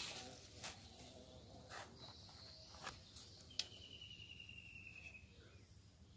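Near silence with a few faint clicks as a clear plastic clamshell box is handled, and an insect trilling faintly and high for under two seconds about halfway through.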